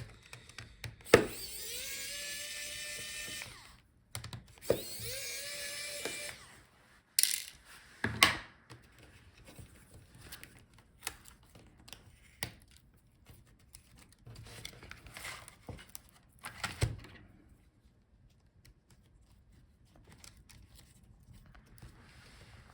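Small electric screwdriver running in two bursts of about two seconds each, its motor whine rising as it spins up, backing out the touchpad screws. It is followed by scattered clicks and knocks of screws and small parts being handled.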